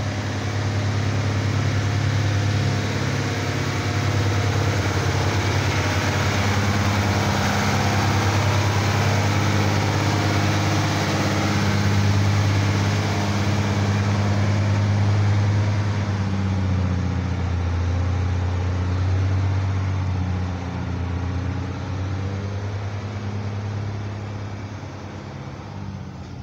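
Diesel engine of a Mercedes-Benz fire truck running steadily at low revs, loud at first and then slowly fading over the last ten seconds.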